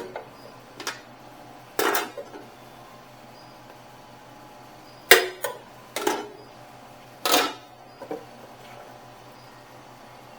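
Serving utensils clanking and scraping against food pans and a takeout bowl: about seven short clatters, the loudest about five seconds in, over a steady low hum.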